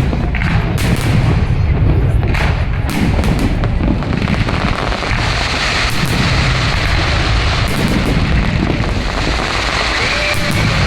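Fireworks display: a quick series of sharp bangs for the first few seconds, then a dense, continuous crackle of bursting shells.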